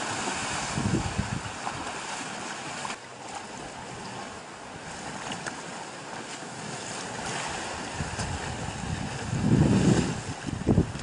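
Wind buffeting the microphone in low rumbles, loudest from about nine seconds in; the rumble is wind, not thunder. Under it, water sloshing and splashing as two Asian elephants wade in a pond.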